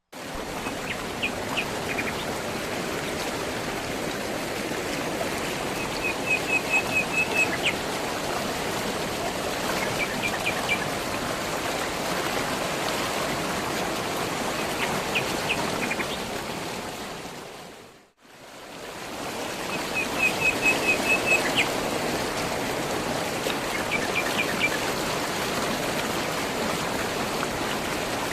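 Steady flowing stream water with small birds chirping over it in short quick runs. About 18 seconds in the sound fades out and back in, and the same stretch repeats as a loop.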